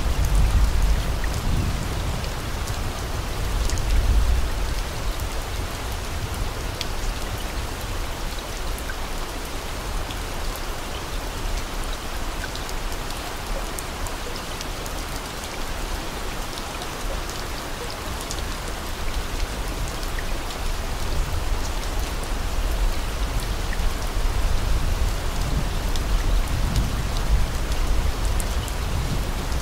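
Steady rain, an even hiss with scattered drop ticks and swells of low rumble about a second in, around four seconds in and near the end. It is a rain-sound track of the kind laid over subliminal affirmations to mask them.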